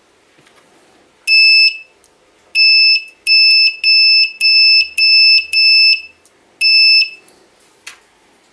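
An electronic beeper sounds eight times, each beep a steady high tone about half a second long, in quick succession, with one click near the end.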